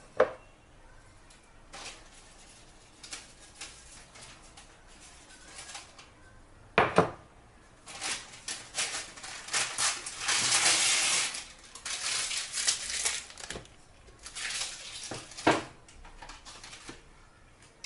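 Kitchenware being handled: scattered sharp clacks and knocks, the loudest about 7 seconds in, and a busy run of clattering and scraping from about 8 to 14 seconds in.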